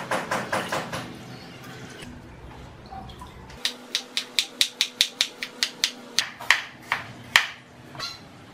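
Large kitchen knife chopping a cucumber into slices on a wooden cutting board: a steady run of sharp chops, about four a second, that slows and stops. A brief patter of quick knocks comes before it in the first second.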